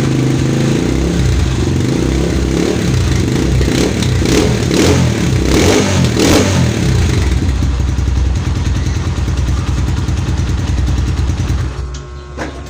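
Rusi KRY150 150 cc motorcycle engine running through its muffler with the end restrictor cut out for a more open exhaust note, revved briefly a few times about four to six seconds in. The engine sound drops away sharply about twelve seconds in.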